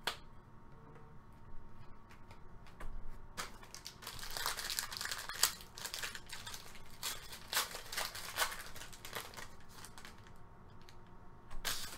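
Foil wrapper of a trading-card pack crinkling and tearing as it is ripped open by hand: a few scattered crackles at first, then a dense run of crinkling from about three seconds in that eases off near the end.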